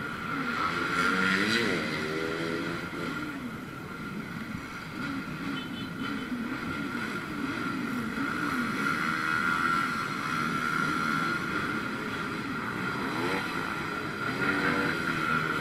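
Many motorbike engines running in a slow-moving crowd of motorbikes, their revs rising and falling as riders blip the throttles, with a steady high whine over them.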